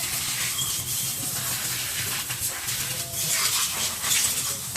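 Loud steady hiss of air or gas spraying over a low hum, cutting off suddenly near the end.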